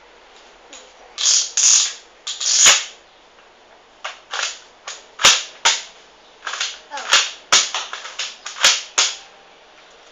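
X-Shot toy foam-dart shotgun being cocked and fired again and again: a string of sharp plastic clacks and snaps, some in quick pairs.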